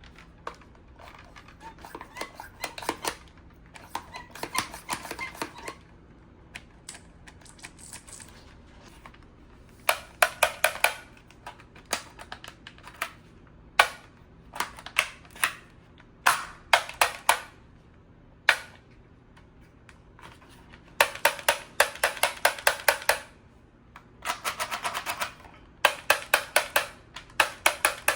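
Plastic toy gun clicking in rapid bursts: runs of sharp clicks, several a second, each lasting a second or two, repeated again and again with short pauses between them.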